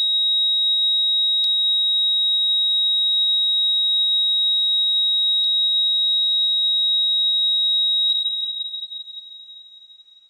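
Heart monitor flatline: a single steady high-pitched tone that fades away over the last two seconds, the signal that the heart has stopped.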